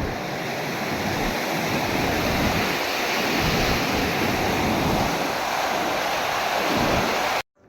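Rushing water of the Budhi Gandaki, a mountain river, heard as a steady loud rush, with wind buffeting the microphone. It cuts off suddenly near the end.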